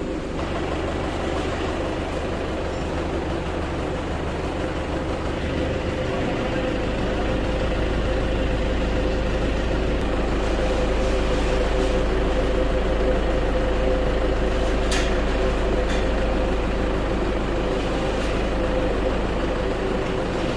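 Isuzu Elf crane truck's engine running steadily, with a thin steady whine over it and a change in its low hum about six seconds in. One short sharp click about three-quarters of the way through.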